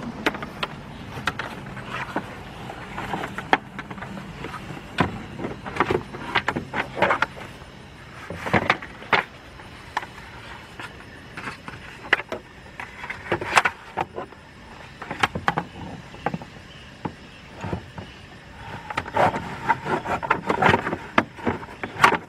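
Hands fitting a trunk trim panel back into a car: irregular knocks, clicks and rustles, some sharp, spread throughout. A faint low hum runs under them for about the first eight seconds.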